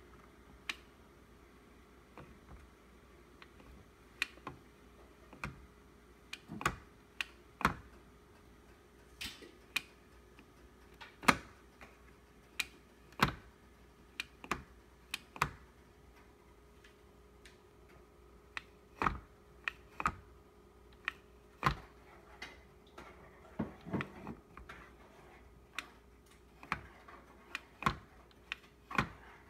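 Irregular sharp clicks and knocks of hard plastic and metal parts being handled: a blender's motor assembly being shifted on its plastic base.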